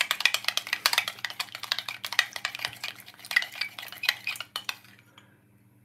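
Metal teaspoon stirring sauce in a glass measuring jug, clinking rapidly against the glass, then stopping about five seconds in.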